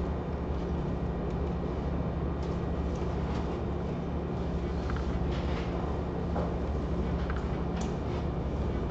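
Steady low hum of room background noise, with a few faint ticks and rustles.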